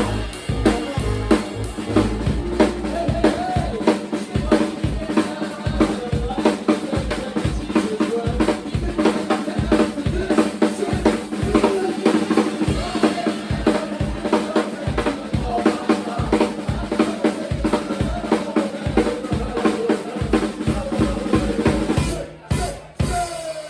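A live band playing, with a drum kit prominent: fast bass drum, snare and rimshot hits over sustained instrument notes. The music breaks off for a moment near the end.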